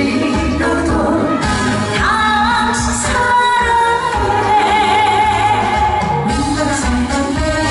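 A woman sings a Korean trot song into a microphone over accompaniment with a steady beat. She holds one long note from about three seconds in to about six seconds in.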